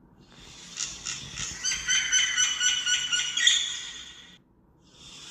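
Common (Indian) myna calling: a run of quick, whistled chirping notes that fades in, grows loud, then fades out about four seconds in.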